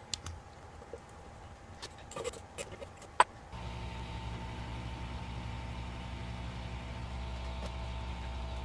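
Faint metallic clicks of tweezers and a small chip on a steel stencil plate, with one sharp click about three seconds in. Then an electric blower starts and runs with a steady hum and hiss, as from a soldering hot-air station or board preheater.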